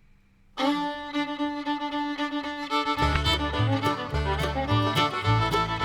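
Background music with no speech: it starts suddenly about half a second in with held melodic notes, and a bass line and steady beat join about three seconds in.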